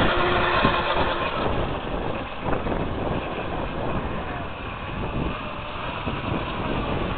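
Small electric RC boat's brushless outrunner motor and surface-drive prop running across the water, a thin steady whine under heavy wind noise on the microphone.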